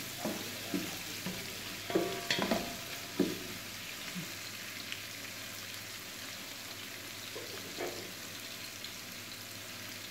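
Sliced onions sizzling steadily as they fry in butter in a large aluminium pot. A wooden spatula scrapes and knocks against the pot a few times in the first few seconds while they are stirred.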